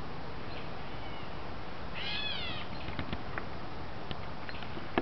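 A bird giving one odd, half-second call that rises and falls in pitch, about two seconds in, somewhat cat-like. A few faint short notes come before it, and a scatter of sharp clicks follows, the loudest near the end.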